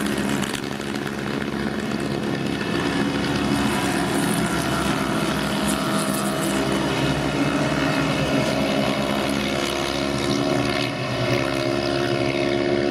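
A pack of small historic racing cars, Mini Coopers, NSU TTs and Fiat Abarths, running hard past the track edge, several high-revving small engines overlapping, their pitches rising and falling as the cars pass and change gear.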